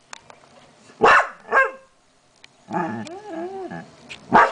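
A dog barking: two sharp barks about a second in, a longer wavering cry in the middle, and one more loud bark near the end.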